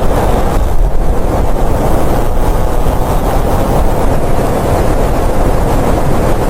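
Strong blizzard wind blowing steadily, a loud, even rushing noise heaviest in the low range.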